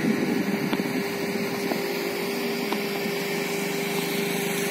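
Steady rushing of a flooded river's fast brown water, an even noise with no breaks, over a constant low hum.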